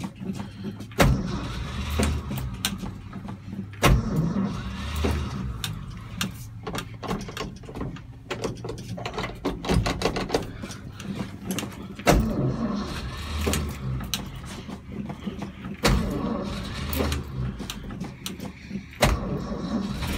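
1965 Ford F-250's 352 V8 running unevenly with a steady low rumble just after a cold start in deep cold. A sharp click or pop comes every three to four seconds, five in all.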